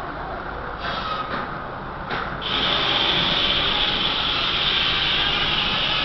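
Old steam-powered sawmill machinery running, with a few short bursts of noise. About two and a half seconds in, a loud, steady, high-pitched cutting noise starts as wood goes through a cutter.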